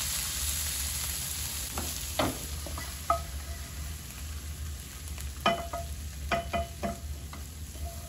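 Chopped pepper, onion and chorizo sizzling in a nonstick frying pan, the sizzle fading within the first second or two as the pan is lifted off the heat. A spatula then scrapes the mix out into a ceramic bowl, with a string of short taps and clinks of pan and spatula on the bowl, some of them ringing briefly.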